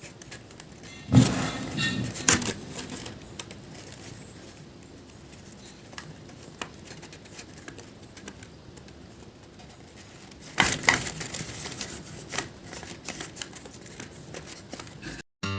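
Paper being handled up close: rustling and crinkling with small clicks and taps. Louder bursts come about a second in and again around ten and a half seconds, with quieter ticks in between.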